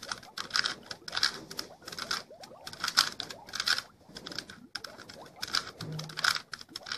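Plastic Rubik's Cube being twisted by hand, layer after layer: a quick clicking rattle with each turn, about two turns a second.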